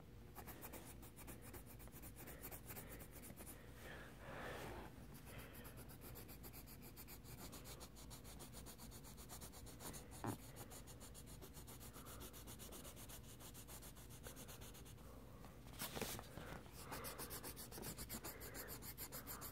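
Colored pencil scribbling on paper, faint, in quick back-and-forth shading strokes, with one sharp tap about halfway through.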